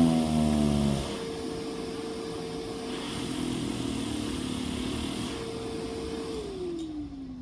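Hand-crank siren winding down with a falling wail that stops about a second in. A blower keeps running with a steady hum and hiss, then spins down with a falling tone near the end.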